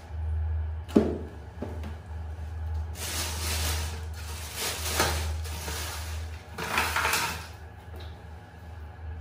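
Knock on a shallow plastic baby tub about a second in, then several seconds of water splashing and sloshing in the tub, over a steady low hum.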